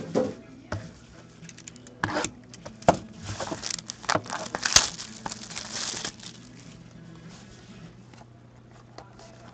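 Plastic shrink-wrap being torn and crinkled off a sealed box of hockey cards. A few sharp taps of the box being handled come first, then a crackling stretch from about three to six seconds in.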